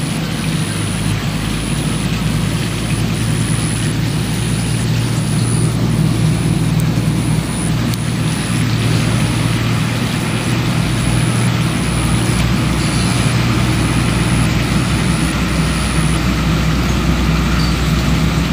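Steady low engine drone, like a vehicle or motor running nearby, with a thin high chirp pulsing about once a second that stops near the end.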